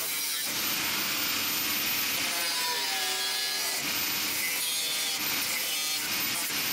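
Angle grinder with a thin cut-off disc cutting through rusty sheet-steel firewall panel, running steadily with a high whine, its pitch wavering as the disc bites into the metal.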